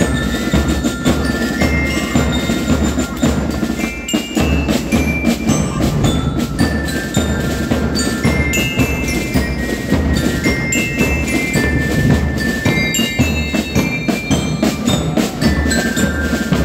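Marching band of bell lyres and drums playing: the lyres ring out a melody over rapid drum hits and a steady low drum beat.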